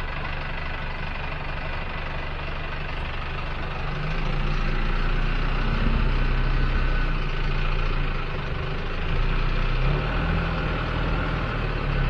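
Ute's engine running at low revs, growing louder about four seconds in as it reverses slowly, with the revs rising and falling.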